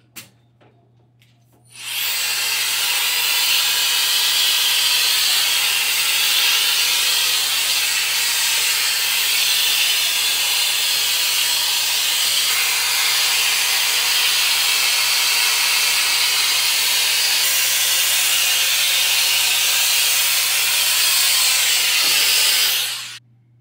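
Hot-air brush (round-brush hair dryer) blowing steadily as it is drawn through long hair. Its fan starts about two seconds in and cuts off just before the end.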